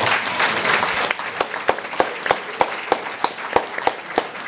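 Audience applauding: a dense patter of many hands for about a second, thinning to a few close, sharp claps about three a second.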